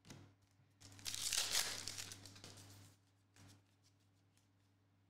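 A foil trading-card pack wrapper being torn open by hand, a crinkly rip lasting about a second and a half starting about a second in, with a brief faint rustle a couple of seconds later.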